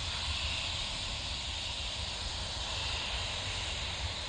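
Landing airliner's jet engines: a steady hiss and whine whose pitch sinks slightly partway through, over a low rumble.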